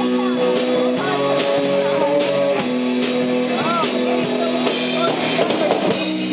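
A live rock band playing: electric guitar chords over a drum kit, with a few bent notes, sounding muffled.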